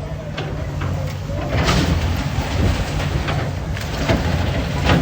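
Heavy engine rumbling low and steady, with short rasping scrapes or knocks every second or so, the loudest near the end.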